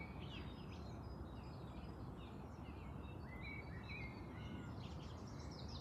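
Several small birds chirping and singing, with short rising and falling notes and a quick trill of repeated notes near the end, over a steady low background rumble.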